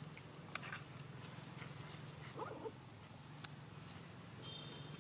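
Faint background with a steady low hum, a few sharp clicks and taps, and one brief call about two and a half seconds in.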